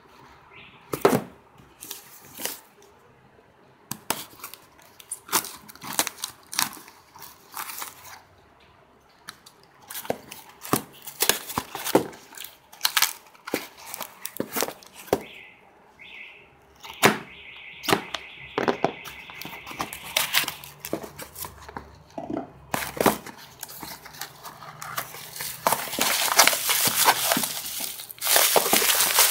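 A taped cardboard box being cut open and unpacked: packing tape slit and torn, flaps and cardboard handled in a run of scattered clicks and scrapes. In the last few seconds, plastic bubble wrap crinkles steadily and louder.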